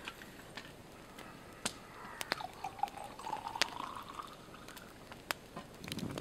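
Liquid poured from a small kettle into a steel cup, the pitch rising as the cup fills. A campfire crackles throughout with sharp pops, and the fire grows louder near the end.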